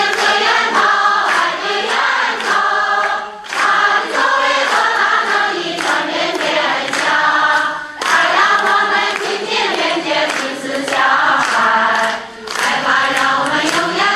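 A choir of voices singing together, in phrases broken by brief pauses about every four to five seconds.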